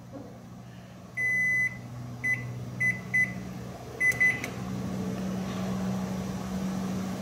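Panasonic inverter microwave's keypad beeping as buttons are pressed: one longer beep, then about six short beeps. Under them is a steady low hum that grows louder about halfway through. The oven runs only briefly before faulting with an H97 error code.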